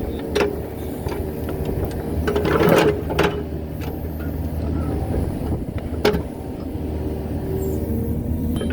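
Kubota KX71 mini excavator's diesel engine running steadily while working, with a few sharp knocks and scrapes. The loudest are a cluster about two and a half to three seconds in and a single knock about six seconds in.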